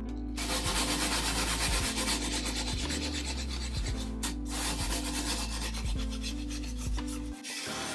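Wet 120-grit sandpaper rubbing on the cut edge of a glass aquarium panel, smoothing off sharp edges. The rasping breaks off briefly about four seconds in and stops shortly before the end.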